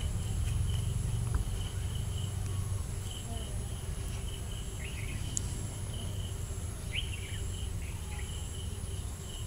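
Insects chirping steadily in a high, pulsing trill over a low background rumble.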